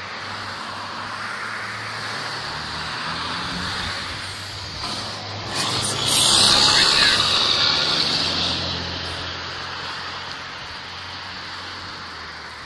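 A motor vehicle's engine running close by, with a rushing hiss that swells to its loudest about six seconds in and then slowly fades.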